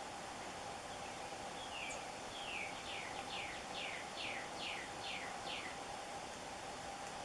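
A bird singing a run of about ten short whistled notes, each sliding down in pitch, evenly spaced over about four seconds starting a second and a half in, over a steady outdoor hiss and faint hum.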